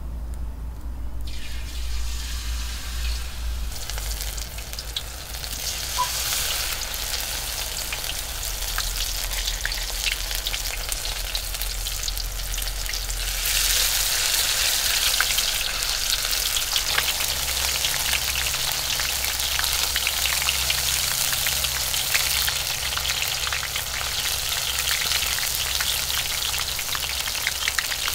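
Battered food deep-frying in hot oil in a metal wok, with a steady dense sizzle and crackle. About halfway through the sizzle gets louder and busier.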